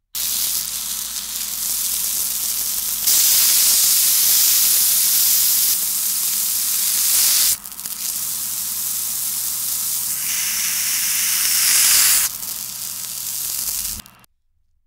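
Beef burger patties sizzling in a hot pan, played in reverse. The hiss jumps in level at several cuts and stops abruptly near the end.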